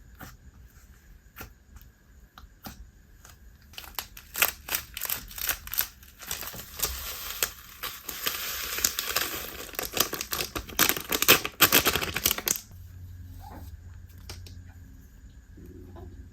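Slime with bingsu beads squished and worked by hand: scattered crackles and clicks that thicken into a dense run of crunchy popping from about four seconds in. The popping stops suddenly near the end, leaving a low steady hum.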